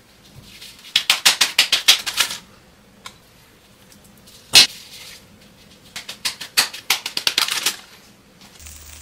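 Gloved hands working masa dough into a filled pupusa: two quick runs of sharp taps and pats, with one louder click near the middle.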